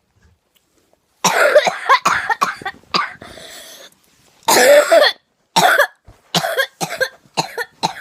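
A person in a coughing fit. After about a second of quiet comes a burst of harsh coughs, then a rasping breath in, then one loud cough and a run of shorter coughs coming quicker and quicker.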